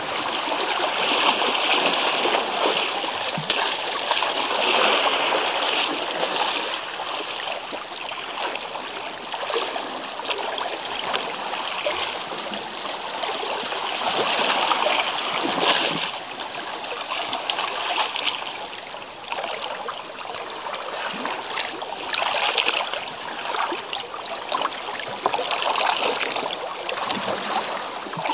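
Small sea waves washing in and out over a pebble shore, the water splashing and trickling among the stones and rising and falling in irregular surges.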